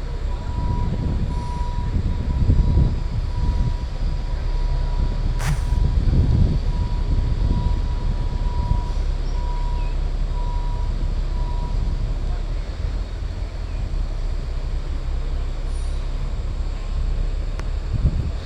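Queensland Rail NGR electric passenger train at the platform, a steady low rumble, with a repeating high beep over the first two-thirds and a sharp click about five and a half seconds in.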